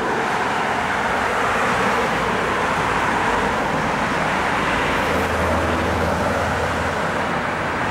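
Steady road traffic noise, an even wash of passing cars, with a low hum joining about five seconds in.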